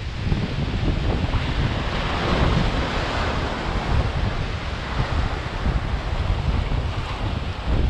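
Ocean surf breaking and washing over the jetty's boulders in swelling surges, with strong wind buffeting the microphone.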